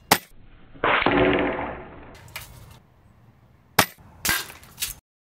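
FX Crown PCP air rifle firing: two sharp shots about three and a half seconds apart. Between them come a louder sound that fades over about a second, and further short clacks.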